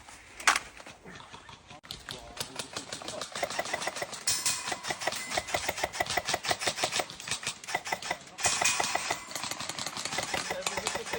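Airsoft guns firing: a single sharp shot about half a second in, then rapid automatic bursts, a fast even rattle of shots.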